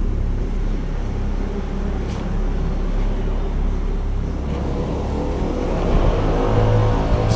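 A steady low rumble with a couple of faint clicks; from about five seconds in, held tones of background music fade in and grow louder.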